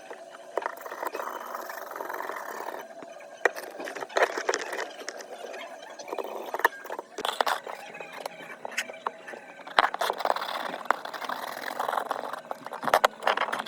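Small repair tools working on an iPhone: irregular sharp clicks and taps over a scraping, rustling noise.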